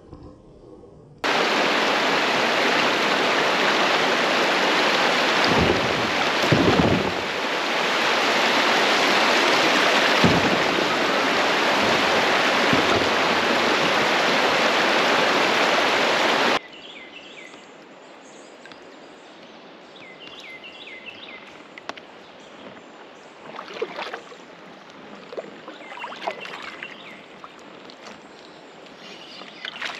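Loud, steady rush of swift river water. It starts suddenly just over a second in and cuts off abruptly after about fifteen seconds, leaving a much quieter water hiss with a few faint high chirps.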